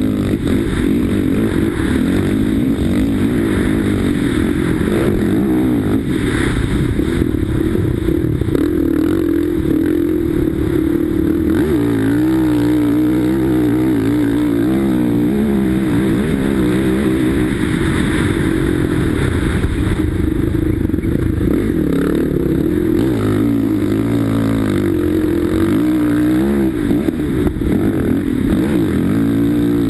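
Sidecarcross outfit's engine racing at full effort, its pitch rising and falling over and over as the throttle is worked and the gears are changed.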